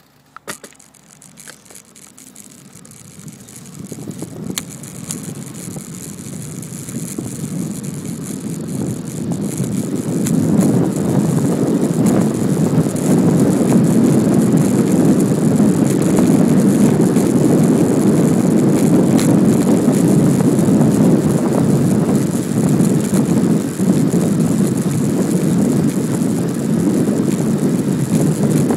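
Wind buffeting the microphone while riding a Brompton folding bicycle. The noise builds steadily over about ten seconds as the bike gathers speed, then holds loud and steady, with a few faint clicks in the first seconds.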